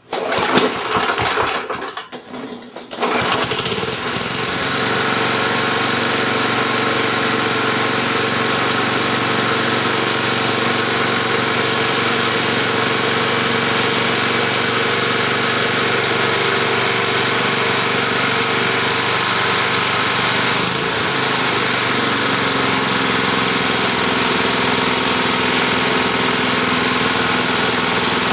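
Tecumseh single-cylinder lawn mower engine, warmed up. It sounds choppy and uneven for about the first three seconds, then runs steadily.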